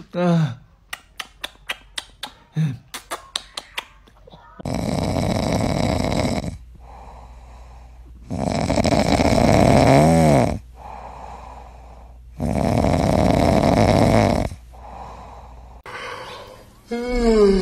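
A French bulldog snoring in its sleep: three long, loud snores about four seconds apart. They follow a quick run of kissing smacks in the first few seconds. Near the end comes a falling, whine-like yawn from a French bulldog.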